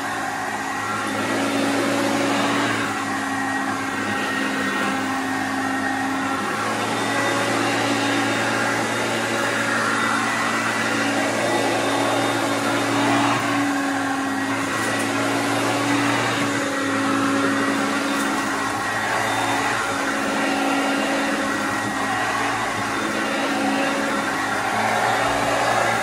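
Hoover Concept upright vacuum cleaner running steadily as it is pushed over a rug and floor: a steady motor hum under a broad hiss that swells a little now and then.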